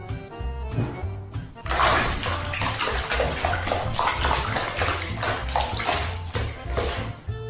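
Water splashing and sloshing in a plastic basin as a crustacean and a fish thrash about, starting about two seconds in, over background music with a steady bass.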